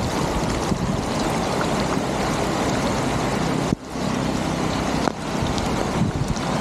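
Floodwater rushing steadily through a cleared road culvert, a loud, even rush that breaks off for an instant about four seconds in.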